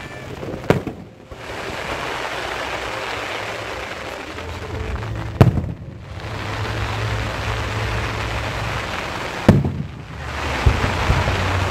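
Fireworks bursting overhead: three sharp bangs about four seconds apart, with a steady rushing noise and low rumble between them.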